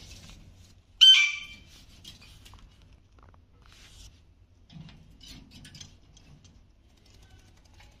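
Alexandrine parakeet giving one short, loud squawk about a second in, falling slightly in pitch, followed by faint scattered clicks and taps from the bird at its capsicum and on the wire cage floor.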